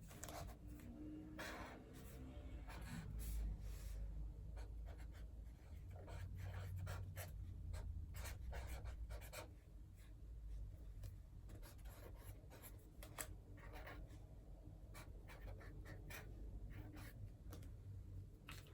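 Pen writing on paper in a planner: a faint run of short scratchy strokes, coming in clusters with brief pauses between.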